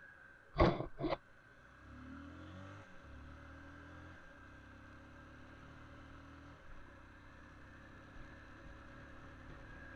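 Two sharp knocks in quick succession, then a faint motor vehicle engine running for a few seconds before cutting out abruptly.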